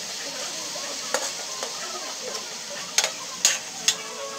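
Raw chicken pieces sizzling in oil in a metal pan as they are sautéed, with a steady hiss. A metal ladle stirring them clinks against the pan about a second in, then three louder times near the end.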